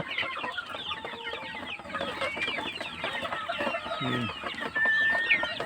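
A flock of Philippine native chickens clucking and peeping over one another, many short high calls overlapping throughout, with a brief low cluck about four seconds in and one longer held high call near the end.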